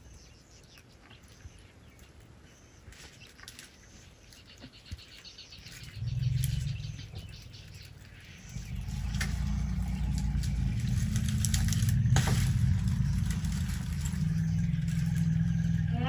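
African elephants giving a deep, low rumbling 'purr'. It starts about six seconds in, grows louder and runs on steadily. Faint bird chirps come before it, and there are a couple of sharp snaps.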